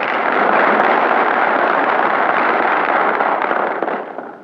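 An audience applauding, a dense round of clapping that dies away near the end.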